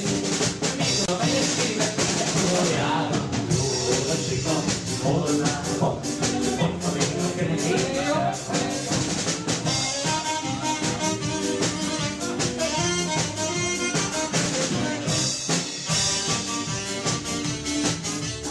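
Hungarian mulatós dance music from a live wedding band, with a steady, fast drum beat under a pitched lead melody.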